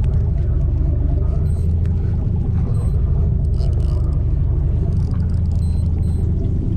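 Fishing boat's engine running steadily, a loud low rumble, with a few faint ticks over it.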